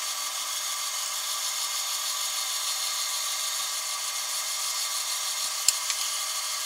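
KitchenAid stand mixer motor running steadily, turning the fruit and vegetable strainer attachment with a steady whine. Two short sharp clicks near the end.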